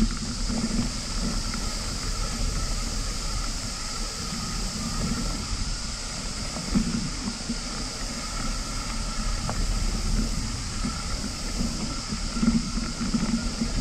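A steady, high-pitched chorus of cicadas over the uneven low rumble of bicycle tyres rolling on a dirt trail, with wind on the handlebar-mounted camera's microphone.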